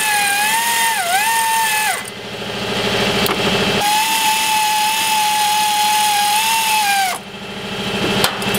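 A power tool spinning a socket on a long extension to back out a shock-mount bolt. There are two long runs of a steady whine, the pitch sagging briefly under load about a second in, then a short burst near the end.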